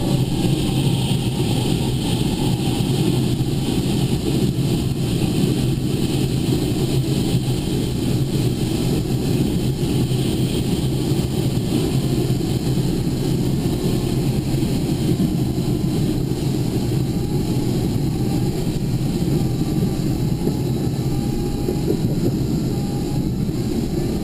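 Motor vehicle running steadily, a continuous low drone of engine and road noise.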